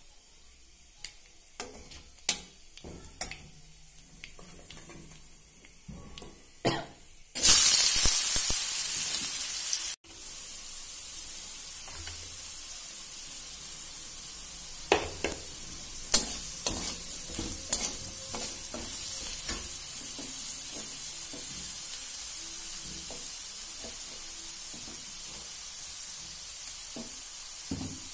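Potato cubes frying in hot oil in a wok. A few scattered taps and crackles come first, then a sudden loud sizzle about seven seconds in as the food hits the oil. After that the sizzle runs steadily, with the metal spatula clicking and scraping against the pan as the potatoes are stirred.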